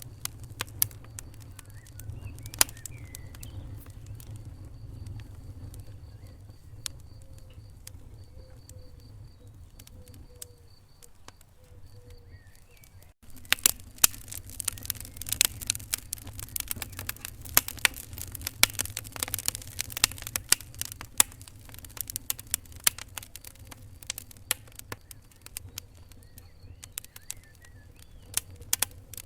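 Wood fire in a fireplace crackling: scattered sharp pops and snaps over a low steady rumble. About 13 seconds in the sound drops out for an instant, and after that the crackling is much denser and louder.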